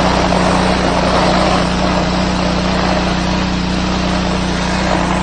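Petrol-engine high-pressure washer running steadily under load, its lance jet blasting a concrete block with a loud hiss of spray over the engine's hum. The hiss eases slightly near the end.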